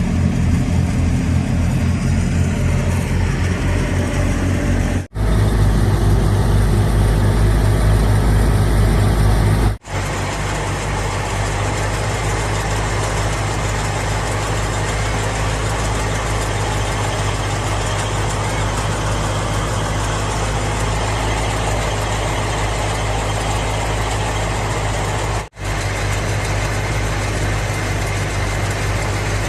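A Fiat 480 tractor's diesel engine running steadily while it powers a wheat thresher, a continuous mechanical din. The sound drops out for an instant three times at cuts, and the first third is louder and deeper.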